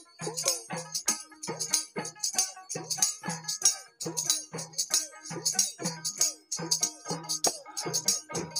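Instrumental break of a Bengali folk-song ensemble: a plucked long-necked lute playing over a steady rhythm of jingling, rattling hand percussion.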